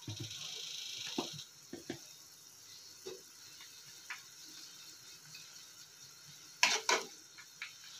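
Sauce simmering in a frying pan while a wooden spatula stirs and scrapes through it: a sizzling hiss for the first second and a half, scattered light knocks, then two sharp knocks of the spatula against the pan near the end.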